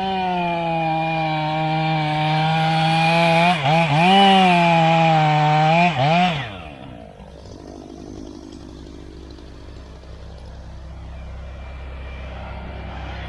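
Chainsaw running at full throttle, its pitch dipping twice as it bogs in the cut. About six seconds in, the throttle is released and it falls away to a low, steady engine sound.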